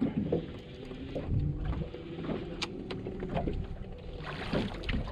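Water slapping against the hull of a small drifting boat, with wind on the microphone and light clicks and rattles from a fishing reel as a fish is cranked up.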